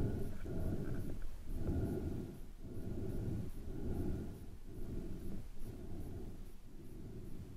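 Muffled underwater water noise against the camera, swelling about once a second as the freediver swims with fin kicks.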